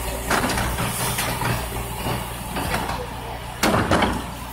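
Rear-loading garbage truck running at idle while a wheeled trash cart is tipped and emptied into its hopper, with clanks and knocks of the cart and tipper. A loud clatter comes about three and a half seconds in, as the emptied cart comes down.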